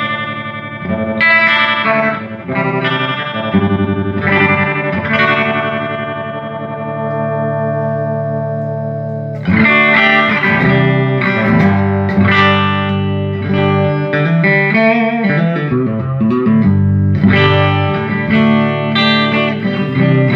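Electric guitar played through a restored 1975 Fender Twin Reverb silverface tube amplifier: chords struck a few times and left to ring out, then, about halfway through, a busier run of notes with bends.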